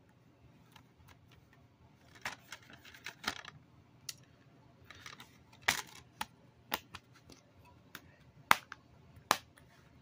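Plastic DVD case being opened and the disc pulled off its centre hub: a series of sharp clicks and snaps with some rustling of handling, the loudest snaps near the end.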